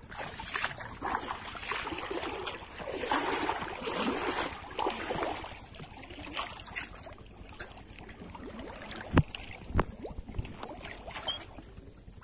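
Shallow pond water splashing and sloshing as a person wades and works his hands through it, busiest in the first five seconds or so, then quieter. Two sharp knocks come about three quarters of the way through.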